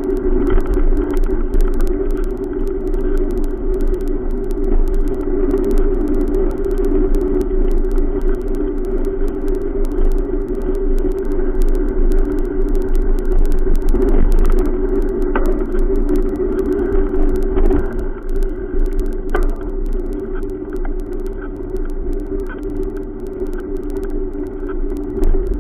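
Steady road noise during a bicycle ride along a busy road: the rolling and rumble of traffic and the bike, with a few faint clicks in the second half.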